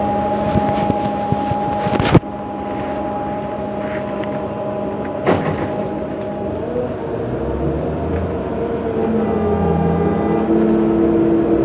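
Cab-interior drone of a Liebherr R9800 mining excavator's engines and hydraulics working a loaded bucket, with a sharp knock about two seconds in and another about five seconds in. After about six seconds the machine's tones shift and glide in pitch as the loaded bucket is raised.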